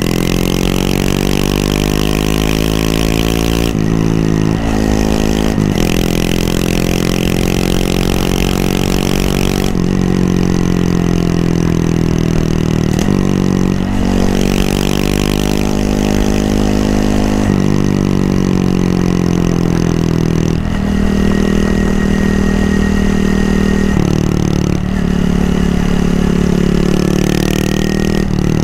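Honda Monkey 125's single-cylinder four-stroke engine under way, rising in pitch as it accelerates with sudden drops at each gear change. It falls away as the bike slows and runs steadier near the end.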